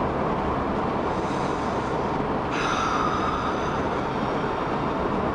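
Steady road and engine noise inside a moving car's cabin, with a brief thin tone a little past halfway through.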